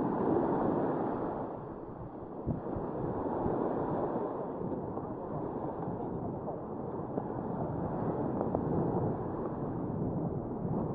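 Surf washing onto a sandy beach, mixed with wind noise on the microphone, in a steady rushing wash that swells and eases.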